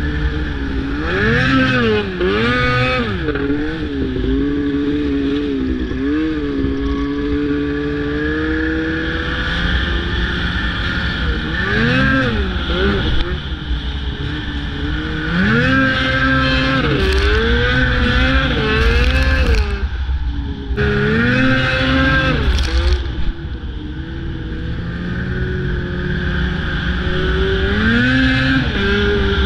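Snowmobile engine running under changing throttle, its pitch climbing and dropping again and again as the rider speeds up and eases off, over a steady low rumble.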